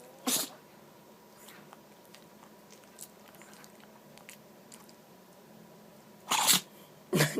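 Chihuahua sneezing in short, sharp bursts: one just after the start, another about six seconds in, and a third right at the end.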